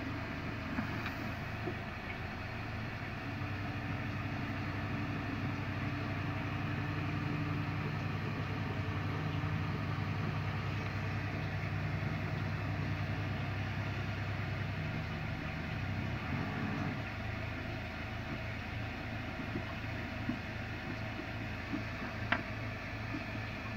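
A steady low mechanical hum, a few held tones, which thins out about 17 seconds in, with a single sharp click a few seconds before the end.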